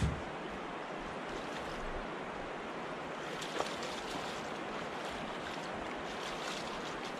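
Steady rush of river current, with light splashing at the water's edge as a hooked fish is played in close. There is a sharp knock at the very start and a small click about halfway through.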